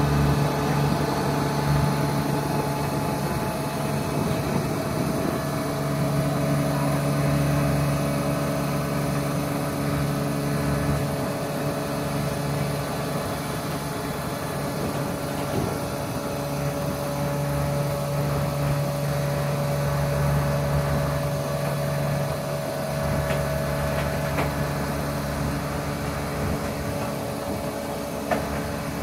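Diesel power pack of a 16-axle self-propelled modular transporter running steadily as the transporter creeps forward carrying a 220-tonne heat-recovery steam generator module. There is a constant engine drone that swells and eases slightly, with a steady higher whine above it.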